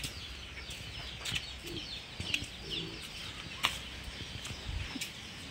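Chickens clucking now and then, with faint chirps of small birds and a single sharp click a little past halfway.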